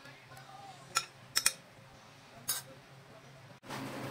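Metal spoon clinking against a ceramic bowl while stirring a beaten egg and vegetable mixture: four short, sharp clinks, two of them close together. A faint steady hiss begins near the end.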